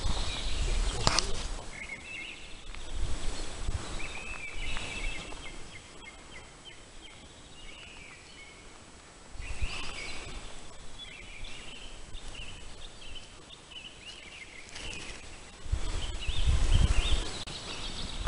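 Birds singing in woodland. Gusts of wind rumble on the microphone at the start and again near the end.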